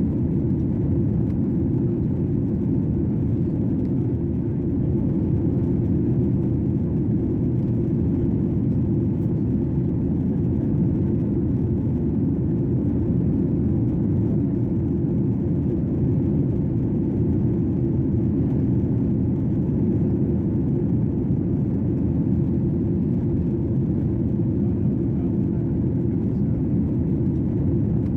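Steady, deep drone of an airliner's cabin in flight: engine and airflow noise heard from a window seat, unchanging throughout.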